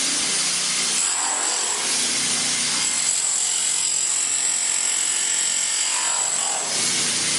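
Rented power floor-removal tool running steadily as it tears up wood flooring, with a high whine that cuts in and out several times over the noise of the wood being ripped loose.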